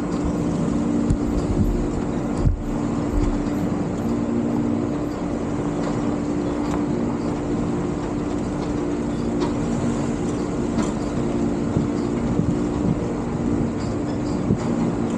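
Car driving on a rough dirt road: the engine runs at a steady pitch over the rumble of the tyres on the gravel, with wind buffeting the microphone held outside the car.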